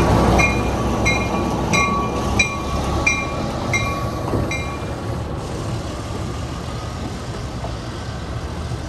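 1954 Baldwin-Lima-Hamilton RS-4-TC diesel switcher, with a Caterpillar D397 V-12 engine, pulling passenger coaches past with a steady rumble that fades as it moves away. A bell rings evenly, about one and a half strikes a second, and stops about four and a half seconds in.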